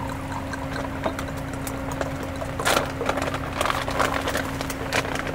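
Scattered light clicks, knocks and clinks of glasses and tableware being handled, the loudest about two and a half seconds in, over a steady low hum.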